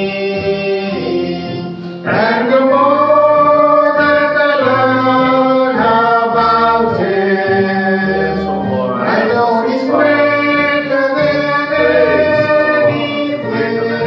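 A man and a boy singing a worship song together over a steady held accompaniment, the singing growing louder about two seconds in.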